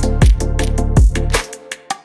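Background electronic dance music with kick drum and heavy bass. About one and a half seconds in, the bass and drums drop out in a short break.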